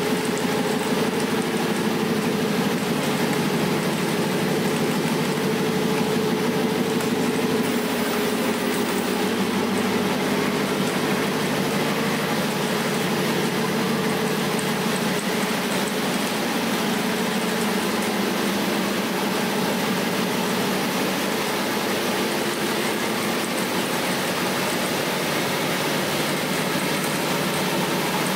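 2016 Aston Martin V8 Vantage GT's 4.7-litre V8 idling steadily from a cold start.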